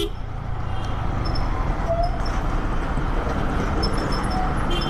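Steady traffic and riding noise from a Yamaha motorcycle moving slowly through dense city traffic alongside trucks. A vehicle horn starts sounding just before the end and is held.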